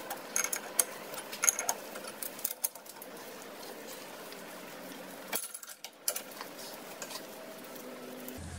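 Metal clicks and clinks of a steel spanner and a reusable hydraulic hose fitting being screwed together in a vise. They come thick and fast for the first two or three seconds, then give way to a faint hiss with a short burst of clicks about five seconds in.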